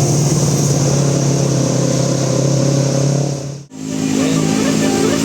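A bus engine running loud and steady with a low drone, then the sound cuts off abruptly about three and a half seconds in, and a multi-tone 'telolet' bus horn starts playing a tune of stepped notes.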